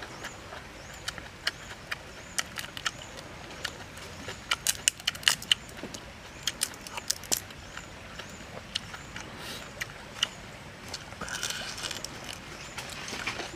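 Cooked shrimp being peeled and eaten by hand: sharp crackling snaps of the shell, thickest about five seconds in, then chewing near the end.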